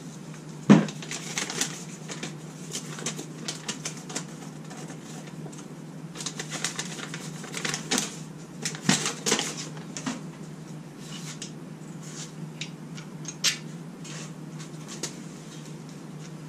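Scattered light clicks and clinks of metal parts and tools being handled, with one sharper knock just under a second in, over a steady low hum.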